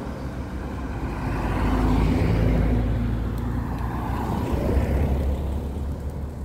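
Cars driving past close by, among them a Volkswagen T-Cross SUV; engine and tyre noise swells as one goes by about two seconds in and again about five seconds in.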